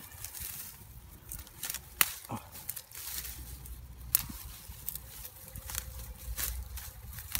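Dry grass and straw rustling and crackling as a hand grips and pulls at a clump of it, with scattered sharp snaps. The loudest comes about two seconds in.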